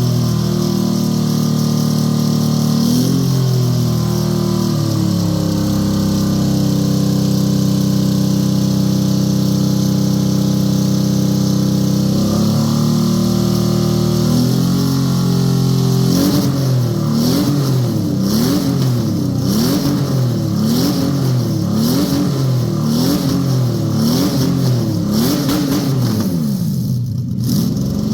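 Toyota 1GZ-FE V12 engine running. It holds a steady speed, dips, picks up again, and for the last dozen seconds is blipped up and down in quick repeated revs, about one every second and a half.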